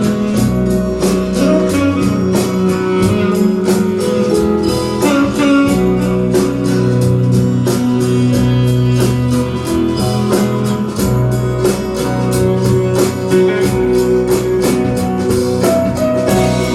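Recorded song with guitar over a steady beat, played back over a hi-fi system.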